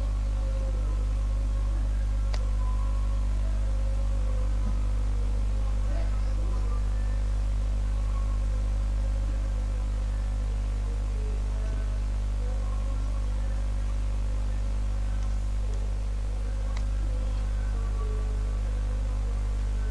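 Steady electrical mains hum picked up by the recording microphone, with two faint mouse clicks over it, one about two seconds in and one near the end.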